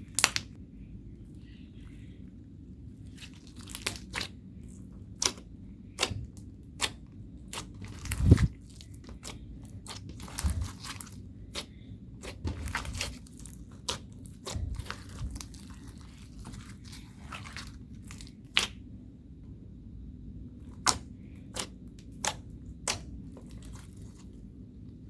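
Slime being squeezed and poked by hand, making irregular sharp pops and crackles as air pockets burst, over a low steady hum.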